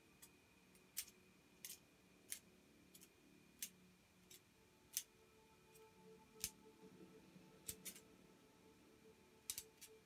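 Near silence broken by a dozen or so sharp, irregularly spaced clicks, some in quick pairs, over faint steady tones.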